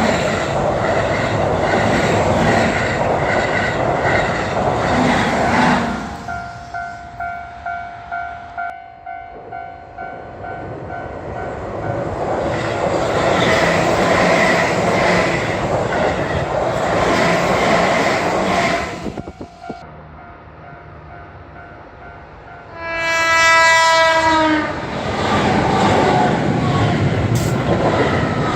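Keihan electric trains passing over a level crossing, wheels clacking over the rail joints: one train passes at the start and another runs through the middle. Between them the crossing's warning bell rings in a steady quick ding, about two a second. About two-thirds through, a train sounds one short horn blast and another train comes on.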